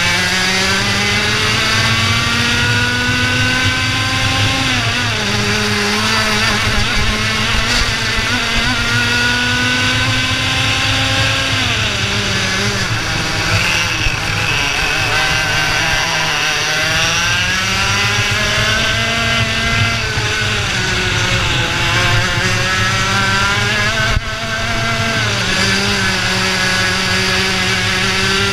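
IAME Leopard 125cc two-stroke kart engine running at racing speed, its pitch climbing steadily through each straight and dropping sharply as the driver lifts for the corners, about five times over.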